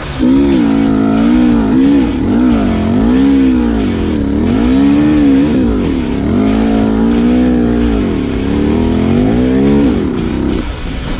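KTM dirt bike engine under throttle on a trail, its pitch rising and falling about once a second as the rider rolls the throttle on and off, dropping away near the end.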